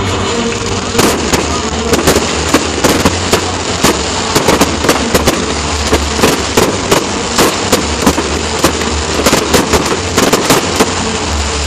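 Aerial fireworks going off in rapid succession: a dense string of sharp bangs and crackles, several a second, starting about a second in and stopping near the end.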